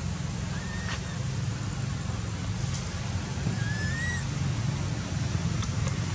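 Steady low outdoor rumble, with two short, faint whistle-like calls: one about half a second in and one a little after the middle.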